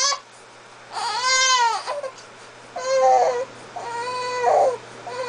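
Young baby fussing and crying in short wails, one after another, after a short pause near the start, while she strains to roll over.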